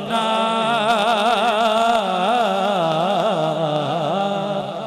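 A man singing a naat into a microphone, holding one long, ornamented note on the word "kainaat" with a wide, wavering vibrato, over a steady low drone. It eases off a little near the end.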